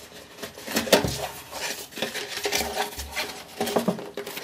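A cardboard graphics-card box being handled and opened by hand: irregular light knocks, taps and scraping of cardboard as it is turned and worked open.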